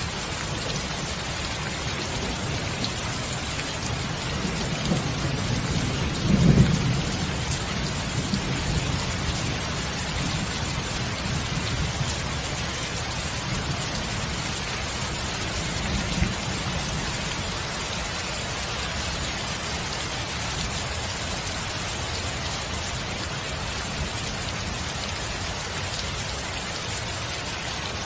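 Thunderstorm: steady rain hiss, with a rumble of thunder that swells from about four seconds in to its loudest about six and a half seconds in, then dies away, and a shorter, weaker rumble about sixteen seconds in.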